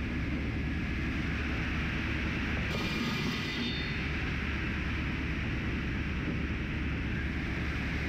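Circular saw blades of a Wood-Mizer EA3000 edger spinning on their arbor, giving a steady machine hum and hiss. About three seconds in, a brighter, higher whir lasts about a second as the blades throw sawdust while the servo drives reposition them.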